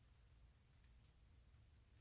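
Near silence, with a few faint plastic clicks about a second in as the layers of a 5x5 Rubik's cube are turned.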